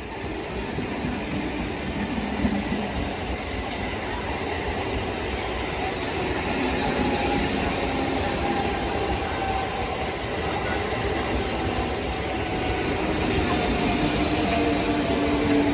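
An Indian Railways train running past on the tracks. Its noise builds over the first couple of seconds and then holds, and in the second half a faint whine slowly falls in pitch.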